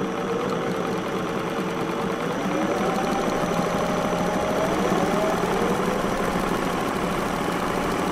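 Engine running steadily, its pitch rising a little between about two and five seconds in.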